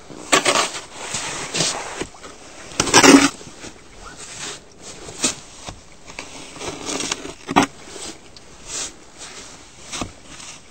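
Snow being dug and shovelled: irregular scraping and crunching strokes through packed snow, the loudest about three seconds in.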